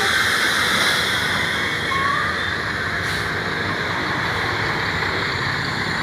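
Intercity Bejeu coach going past, a steady rush of engine and tyre noise.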